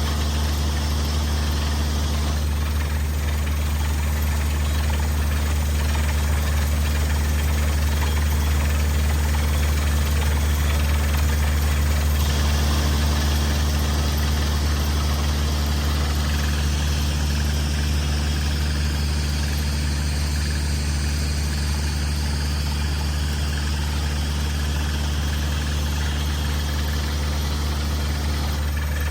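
Engine of a well-drilling rig running at a steady, even speed with a deep hum.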